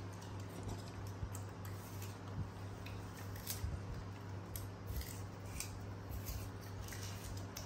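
Young macaques biting and chewing crisp apple slices: irregular short crunches and clicks over a steady low hum.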